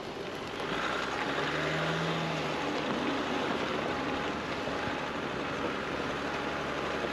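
Jeep Wrangler driving slowly along a rough dirt and stone two-track, heard from outside the body near the front wheel: the engine running under the noise of the tyres on the track. It gets a little louder about a second in.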